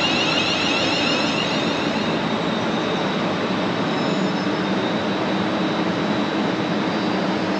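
A passing train: a steady loud rush of wheels on rails, with a high, wavering whine that fades out about two seconds in.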